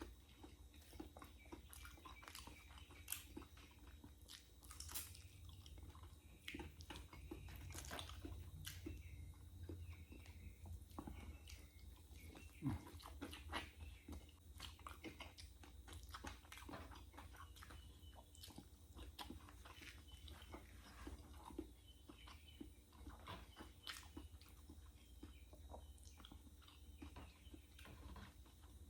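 A person eating close to the microphone: chewing and biting with many small, irregular crunches and clicks, over a faint low hum.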